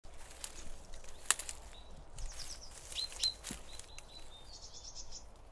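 Jungle birds calling with short high whistles and a quick run of chirps near the end, over scattered crackles and snaps of dry leaves and twigs underfoot; a sharp snap about a second in is the loudest sound.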